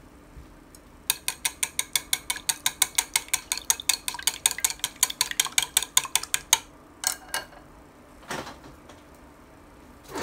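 Chopsticks beating raw eggs in a ceramic bowl, clicking against the bowl about nine times a second for five or six seconds, then stopping; a couple of single knocks follow.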